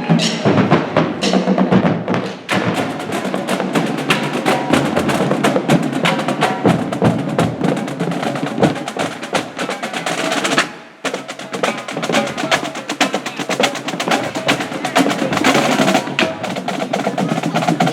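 High school marching band's percussion playing a fast, dense cadence of drum strokes and sharp stick clicks, with snare rolls. There is a brief break about eleven seconds in.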